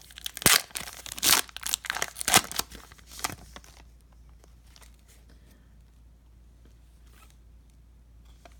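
Plastic-foil wrapper of a trading card pack being torn open and crinkled in quick crackling strokes, stopping about three and a half seconds in.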